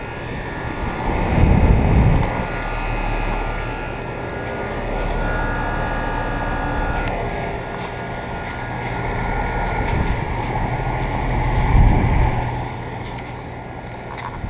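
Outdoor central air conditioner condensing unit running: a steady fan rush with a low hum and a few steady higher tones, broken by two louder low rumbles, one about two seconds in and one near the end.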